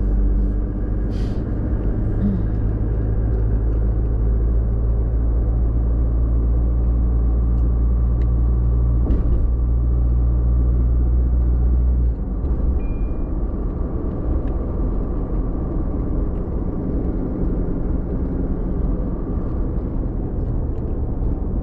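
A car driving along, its engine and tyre noise a steady low rumble. The low drone drops in level about twelve seconds in, and a few faint clicks sound over it.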